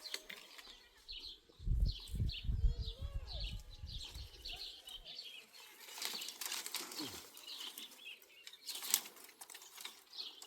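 Small birds chirping in short, high, repeated notes, about two or three a second. A low rumble runs for a few seconds near the start, and there are brief rustles about two-thirds of the way through.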